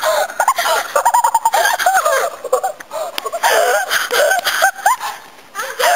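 Children laughing and shrieking excitedly in high-pitched voices, in short wordless bursts.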